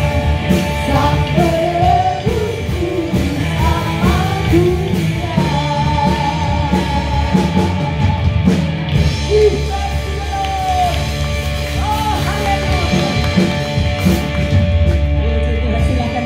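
Worship band playing with a singing voice over sustained chords, the music running without a break.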